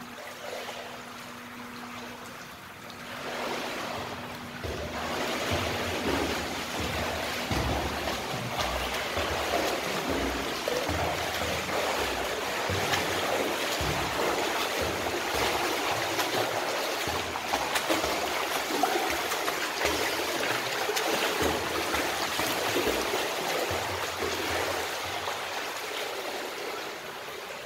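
A swimmer splashing through pool water with kicks and arm strokes. It is a steady churning splash that builds about three seconds in, with scattered low thumps from the kicks.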